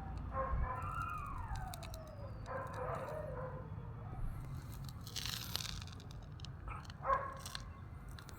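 Outdoor background sound: a steady low rumble with several distant short calls, one sliding down in pitch, a brief rustle about five seconds in, and a short sharp call near the end.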